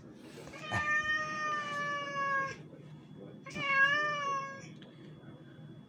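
Stray tomcat meowing twice: a long cry of nearly two seconds that sinks slightly in pitch, then about a second later a shorter, wavering one.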